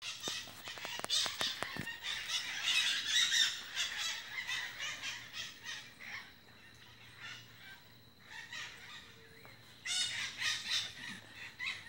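Many birds calling in the treetops, a dense chatter of short, high calls that is busiest in the first few seconds, thins out, and swells again near the end. A few sharp clicks sound in the first two seconds.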